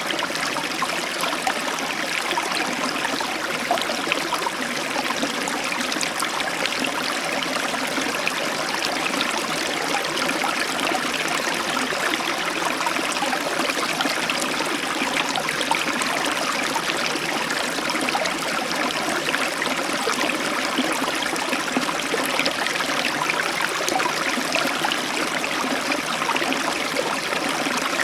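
River water flowing over stones: a steady, even rush of running water with a fine babble, unchanging throughout.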